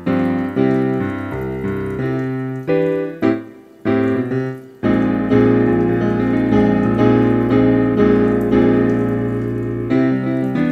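Background solo piano music, notes and chords struck and left to ring. It thins out briefly about four seconds in, then comes back fuller.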